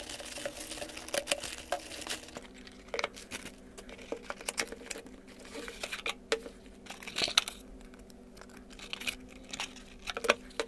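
Packaging being unwrapped by hand: a plastic mailer bag crinkling and tearing as it is cut open, then rustling of the product's wrap and cardboard box, in irregular scattered crackles.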